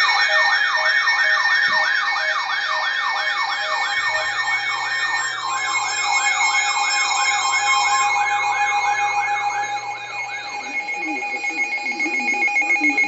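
Weather alert radio alarms going off together: a fast siren-like warble rising and falling about three times a second, over steady tones and a short repeating beep. The warble stops about eleven seconds in, and the steady tones then cut off suddenly.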